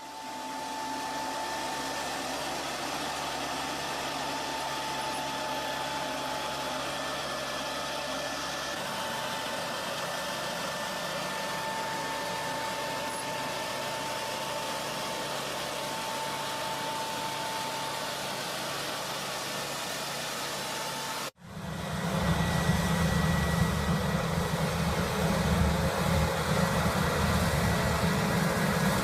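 Engine of a machine running steadily, with a faint high whine over it. About two-thirds of the way through it cuts off abruptly and a louder, deeper engine follows.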